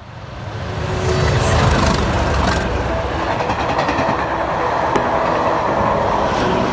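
Train running: a continuous rail-vehicle rumble and running noise that swells up over the first second and then holds steady.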